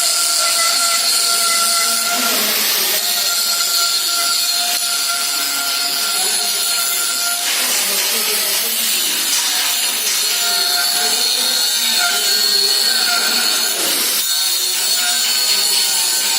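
Steady, loud hissing crackle of metalwork on a welding job, with a high steady whine over it, changing briefly three times.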